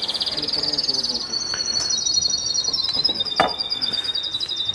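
Steady high-pitched chirping from outdoor wildlife, several rapid pulsing trills overlapping. One sharp click sounds about three and a half seconds in as a hand takes hold of the glass pan lid.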